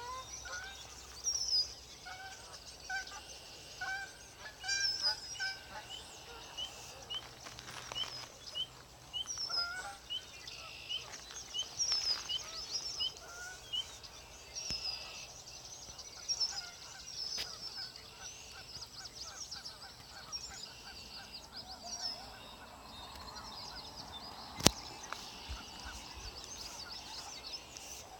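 Wild birds calling over one another: many short repeated calls, some high-pitched and some lower, overlapping throughout. A single sharp click sounds near the end.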